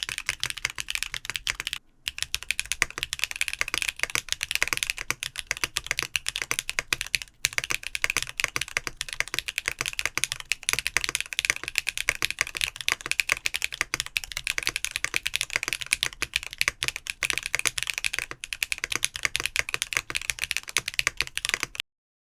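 Continuous fast typing on a mechanical keyboard with tactile switches: a dense stream of crisp key clacks with two brief pauses, stopping abruptly near the end.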